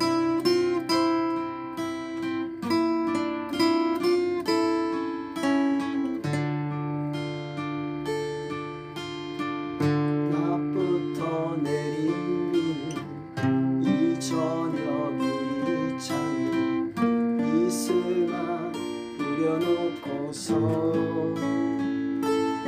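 Acoustic guitar playing a slow song's instrumental intro: strummed and plucked chords under a melody line.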